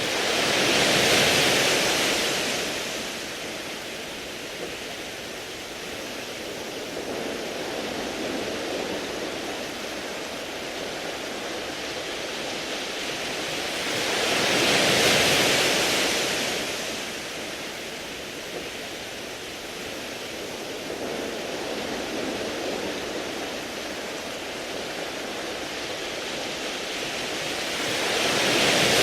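Sea waves washing up and drawing back over a beach of round, smooth pebbles, with a steady rushing hiss. It swells to a louder surge near the start, again midway, and once more at the end, roughly every fourteen seconds.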